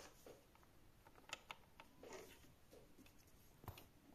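A few faint, sparse clicks and light taps of a steel gauge block being handled and turned against sewing-machine parts. The sharpest tap comes near the end.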